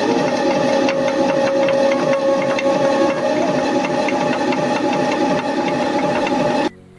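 A small engine or motor-driven machine running steadily with a fast rattling beat, cutting off abruptly near the end.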